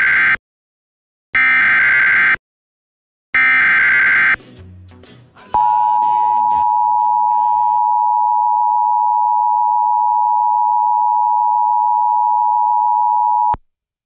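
Emergency Alert System tones on an FM radio broadcast. First comes the tail of one SAME header data burst, then two more bursts, each about a second long with a second of silence between. Then the EAS two-tone attention signal (853 and 960 Hz) holds steady for about eight seconds and cuts off suddenly; these tones open a severe thunderstorm warning.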